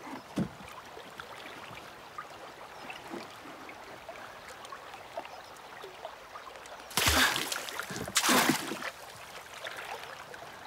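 Lake water lapping quietly against a wooden raft, with small knocks, then two loud splashes a second apart, about seven and eight seconds in.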